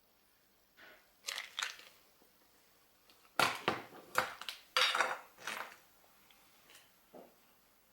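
A string of sharp clicks and clattering knocks from hard objects being handled, bunched in the middle with a last small knock near the end.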